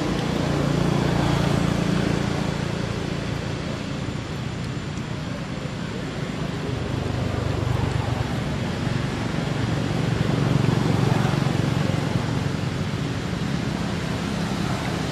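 Low rumble of passing road traffic, swelling twice as vehicles go by.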